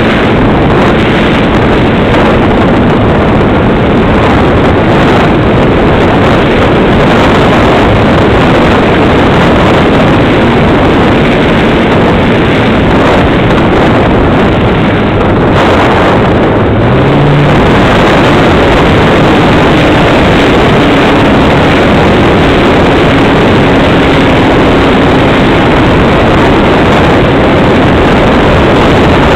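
Model airplane's propeller and motor running in flight, heard through the onboard camera's microphone as a loud, steady rush mixed with wind buffeting, with a brief rise in motor pitch about halfway through.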